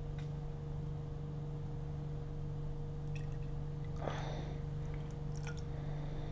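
Distilled water poured from a glass bottle into a graduated cylinder: a faint trickle with a few small clicks and a brief splash about four seconds in, over a steady low hum.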